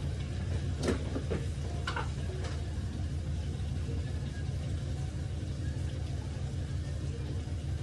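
A steady low hum, with a few sharp clicks about one to two and a half seconds in as a sugar jar and ladle knock against a cooking pan.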